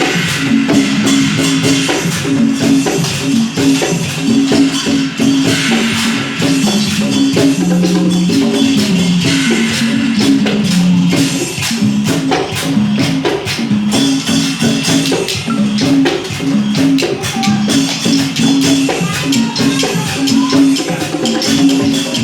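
Isan (northeastern Thai) folk dance music: a quick melody of short repeated wooden-xylophone notes, in pong lang style, over dense clicking and rattling percussion.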